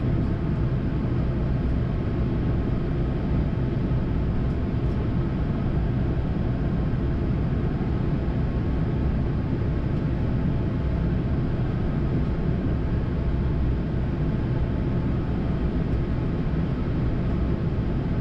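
Steady in-flight noise on a Boeing 787-9 flight deck: an even rush of air over a low rumble, unchanging throughout.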